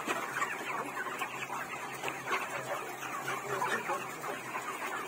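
A flock of many chickens clucking and calling at once, a steady, dense chatter of short overlapping calls.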